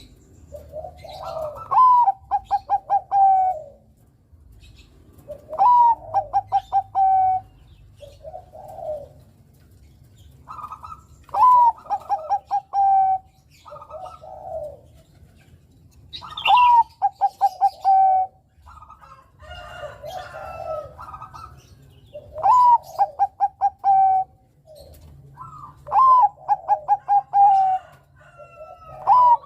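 Bangkok-strain zebra dove (perkutut) singing its cooing song over and over. Each phrase is a rising coo followed by a string of quick stuttering notes that fall slightly in pitch, and a phrase comes about every four to five seconds, with softer coos between them.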